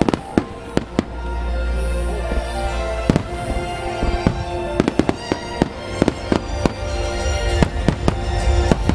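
Aerial firework shells bursting over a low rumble: sharp bangs and crackles that come thicker in the second half. Music plays along with the show.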